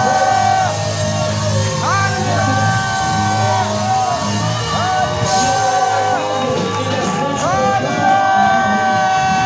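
Live church praise music: sung notes that each slide up into pitch and are held, repeating every couple of seconds over a steady bass, with shouts of praise from the congregation.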